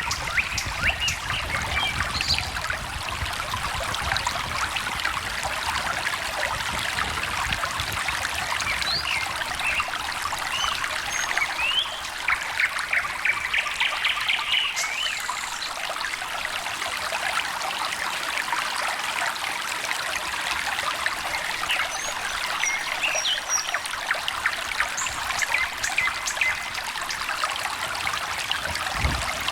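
Small stream trickling and babbling steadily, with birds chirping and singing now and then over it, including a quick trill of repeated notes about halfway through.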